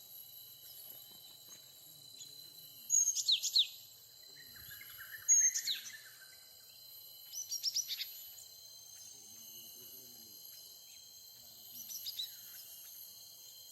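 Small songbird giving sharp high chirps in short bouts: a couple about three seconds in, more around five and a half seconds, a quick run of about five notes near eight seconds and a fainter call near the end. Under them runs a steady high-pitched insect drone.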